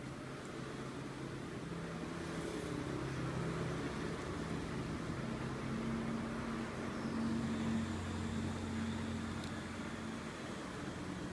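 Low, steady mechanical hum of a running engine, with a few held low tones that come and go.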